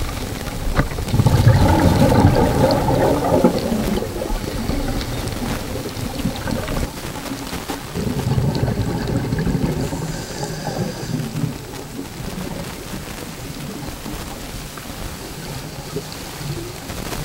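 Scuba regulator breathing heard underwater: exhaled air bubbling out in two long gushes, about a second in and again about eight seconds in, over a steady underwater wash.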